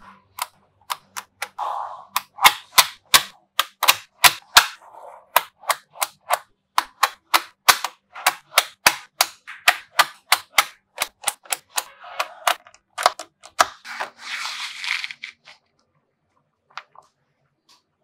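Small magnetic balls (neodymium sphere magnets) snapping together with sharp clicks as rows and slabs of them are joined, a quick irregular series of crisp clacks, about two or three a second. A few short rattling scrapes of the balls come between them, the longest about fourteen seconds in, after which the clicking stops.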